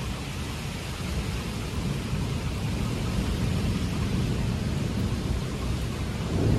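Thunderstorm: a steady hiss of heavy rain under a low rumble that grows louder after about a second and surges near the end.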